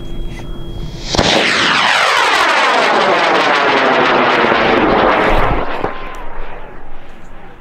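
High-power rocket motor lighting about a second in and burning with a loud rushing noise for about four seconds. Its tone sweeps steadily downward as the rocket climbs away, then fades.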